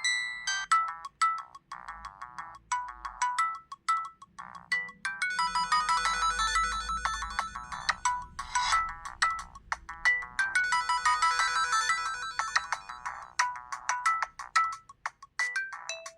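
LG KG800 Chocolate mobile phone playing an electronic ringtone: a fast melody of short notes, several at once, thin and without bass, with a short break near the end.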